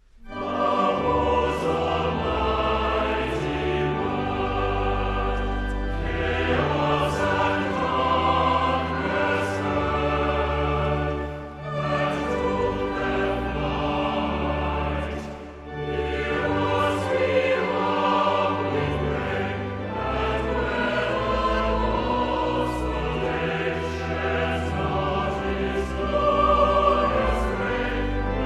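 Choral music: a choir singing over orchestral backing with a steady bass line.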